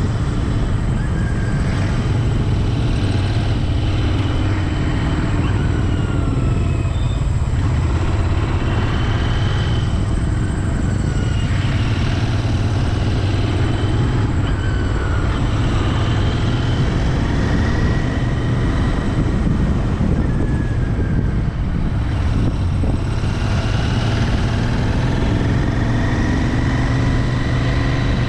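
Royal Enfield Interceptor 650's parallel-twin engine running on the move. It holds a steady low hum, and its pitch rises and falls a few times as the throttle and revs change.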